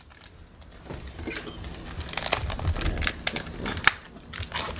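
Plastic sauce packets crinkling and crackling as they are handled, with scattered clicks and a few light knocks on the counter.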